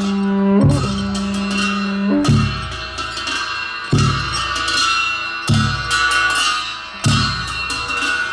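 Instrumental music: plucked strings over held drone tones, with a low drum struck about every second and a half.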